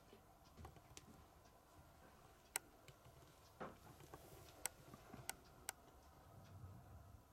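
Near silence with a few sharp, irregularly spaced clicks and one soft rustle about three and a half seconds in.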